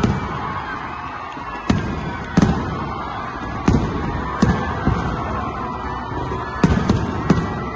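Fireworks bursting overhead: about nine sharp bangs at irregular intervals, several close together near the end, over a steady background din.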